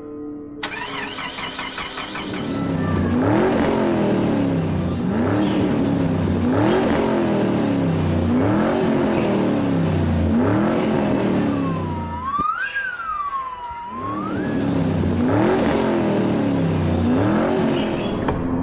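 Motor engine revved over and over, rising in pitch about every second and a half, with a short up-and-down siren-like whoop about two-thirds of the way through.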